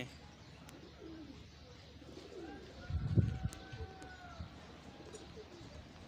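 Domestic pigeons cooing, with low wavering calls coming on and off. A brief, louder low thump comes about three seconds in.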